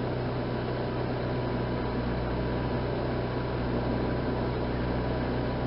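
Steady low hum with an even hiss over it, unchanging throughout: background room noise with no other sound.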